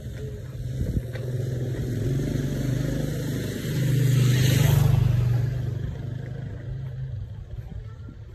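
Motorcycle engine passing close by on a dirt road: it grows louder, is loudest about four to five seconds in, then fades away.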